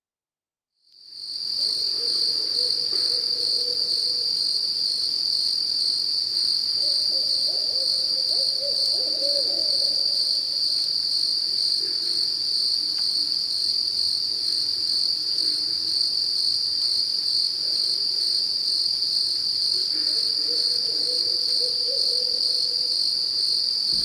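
Night swamp ambience: a steady, high-pitched insect chorus fades in about a second in. Barred owls hoot under it in bouts, about seven seconds in and again about twenty seconds in.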